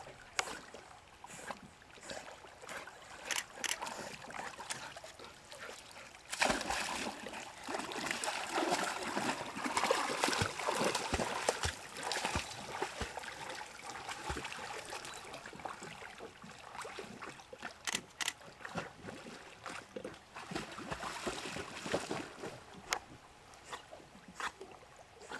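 A dog swimming and splashing through lake water, with sloshing and splashing throughout. The splashing is loudest from about six seconds in to about fourteen seconds.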